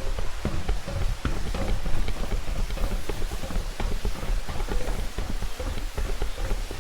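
Footsteps of a hiker on a rocky mountain trail, a rapid irregular run of knocks and scuffs, over a low rumble of wind or handling on the microphone.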